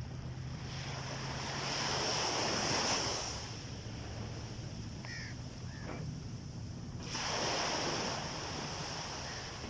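Sea waves washing onto a beach, two surges: one builds and peaks about three seconds in, the next breaks suddenly about seven seconds in and fades away.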